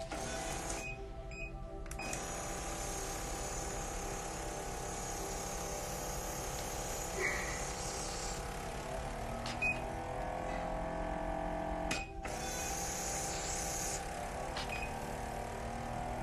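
Electric microneedling pen running steadily over forehead skin with its needle depth set to 1 mm.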